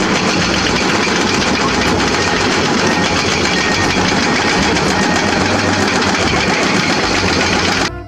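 Heavy hydraulic excavators' diesel engines running at a rock quarry, a loud steady rumble with rough mechanical clatter. It cuts off suddenly near the end.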